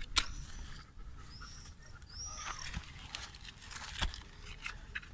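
Oak kindling and lighter fluid burning in a Finnish candle fire, giving sparse crackles and pops. Two short high chirps come in about a second and a half and two and a half seconds in.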